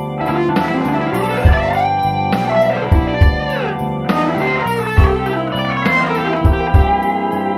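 Instrumental electric blues: an electric guitar plays bending, sliding lead lines over a sequenced bass and drum backing with a steady kick drum about once a second.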